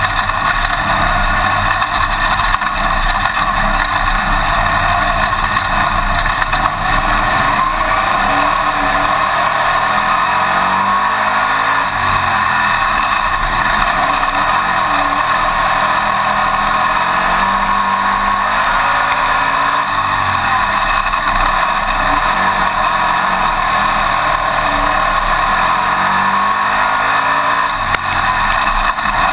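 Winged dirt-track modified race car engine at racing speed, heard from inside the cockpit with a loud, steady roar of wind and engine over the microphone. The engine note rises and falls again and again as the car goes around the track.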